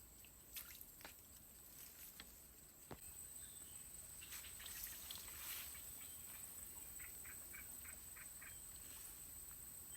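Faint outdoor ambience: a steady high insect drone, stronger from about three seconds in, with scattered small clicks. Near the end comes a short run of quick chirps, about five a second.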